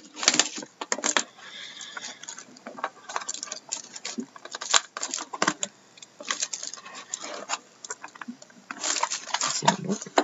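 Plastic shrink-wrap crinkling and tearing as it is peeled off a trading-card box, in irregular crackles that are loudest near the start and near the end.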